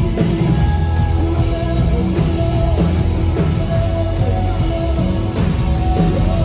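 Live worship band playing an instrumental passage, electric guitars over a drum kit, with sustained notes.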